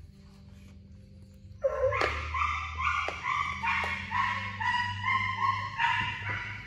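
A dog barking in a rapid run of short, high-pitched yips, about three a second, starting a little under two seconds in after a quiet start.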